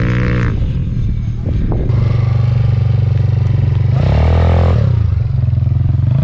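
A small quad bike's engine running loud and close, after a quieter moment, with its pitch shifting about four seconds in as the rider works the throttle.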